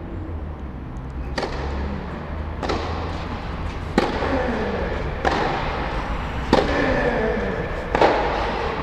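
Tennis ball struck back and forth with rackets in a rally, six sharp hits about 1.3 seconds apart, each echoing in the covered hall.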